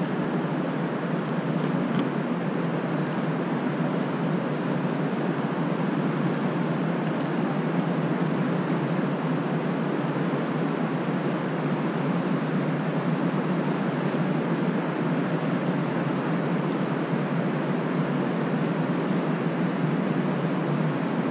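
Steady roar of Hance Rapid's whitewater ahead, an even rushing noise that holds without change.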